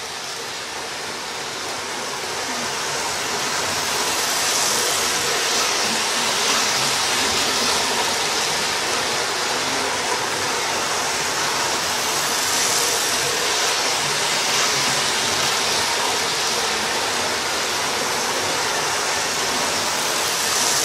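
Model railway trains running round the layout: a steady whirring hiss of their motors and wheels on the track, building over the first few seconds and then swelling and fading gently as they circle.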